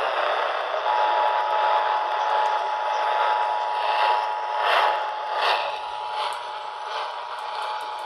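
Emergency Alert System two-tone attention signal, a steady dual tone coming over a Midland emergency weather radio's small speaker. It starts about a second in over a hiss of radio static and announces an EAS Required Monthly Test. A few short clicks come near the middle.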